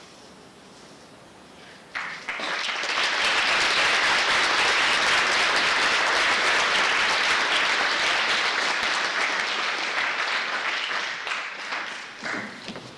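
Audience applauding: a dense clapping that starts about two seconds in after a short quiet pause, holds steady, and dies away near the end.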